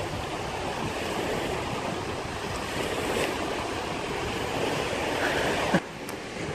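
Steady outdoor noise of surf on the shore mixed with wind on the microphone. It drops suddenly to a quieter level near the end.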